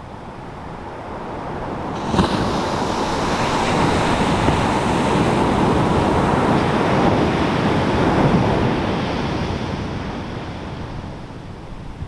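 Pacific Ocean surf breaking on a sandy beach. A wave crashes sharply about two seconds in, and its wash rushes up the shore for several seconds before fading away near the end.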